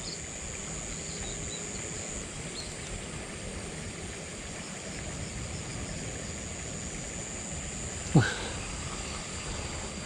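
A steady high-pitched insect drone over outdoor background noise, and about eight seconds in a single short, loud swish as a fishing pole is swung out to cast.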